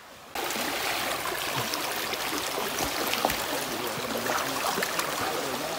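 Stream water trickling and swishing with a steady hiss and many small ticks, starting abruptly a moment in.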